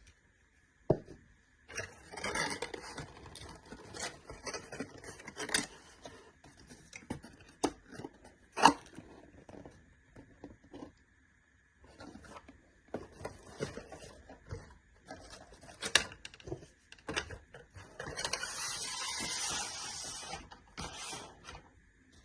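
Packaging and parts being handled by hand: irregular rustling and scraping with sharp clicks and knocks. There is a denser two-second rustling hiss near the end.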